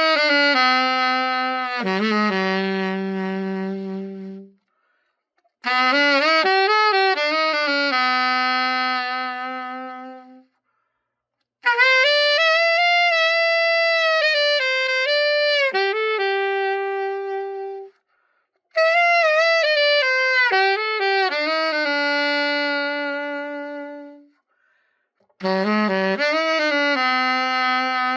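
Solo alto saxophone, the freshly overhauled Selmer Reference 54, played in five short melodic phrases with brief pauses between them: a play-test after the repair.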